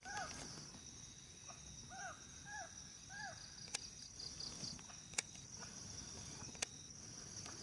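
Forest ambience of insects: a steady high buzzing and a fast pulsing trill. A bird gives four short arched calls in the first few seconds, and three sharp ticks come later.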